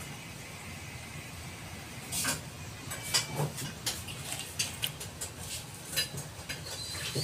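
Fresh banana leaves crackling and rustling as they are folded by hand into a wrapped packet, a quick irregular run of short crisp crackles starting about two seconds in.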